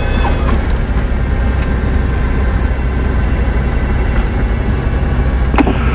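Cessna 172's engine and propeller running steadily as a deep, loud drone inside the cabin while the plane rolls along the runway, with a short click near the end.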